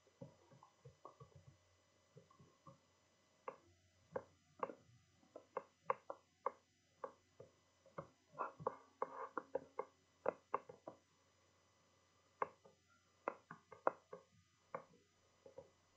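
Faint, irregular clicks and knocks, some with a short ringing, bunched into quick runs, over a faint steady hum.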